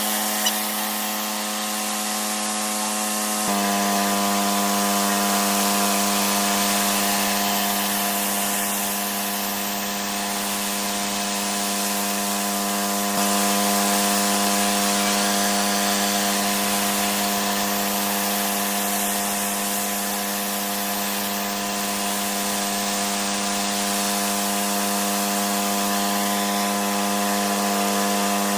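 Pressure washer cleaning block paving: a steady machine hum under the hiss of the high-pressure water spray. The hum's tone shifts slightly about three and a half seconds in.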